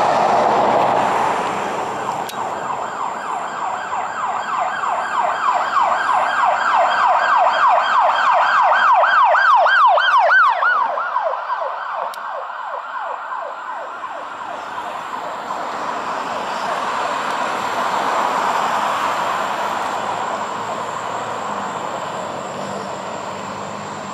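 Police car siren in a fast yelp, about three sweeps a second, starting about two seconds in and growing louder, then dropping in pitch and fading out about eleven seconds in. Road traffic noise before and after.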